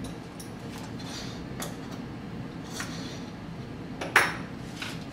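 Scattered light clicks and taps from hands working at the base of a homemade Stirling engine, with one sharper clack about four seconds in, over a steady low hum.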